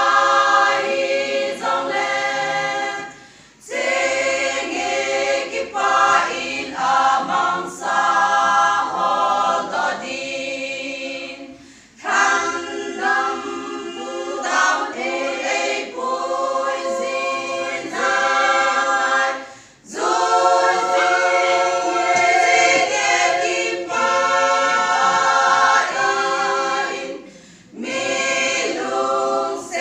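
Women's choir singing a cappella in long phrases, with a short pause for breath about every eight seconds.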